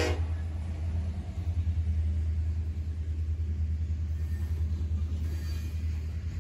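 Freight train passing at close range: a steady low rumble from the trailing SD70ACe diesel locomotive, then tank cars and boxcars rolling by on the rails.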